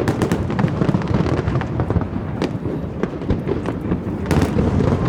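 Fireworks display going off in rapid succession: a dense run of sharp crackles and pops over a continuous low rumble of bursts, with a couple of louder bangs standing out.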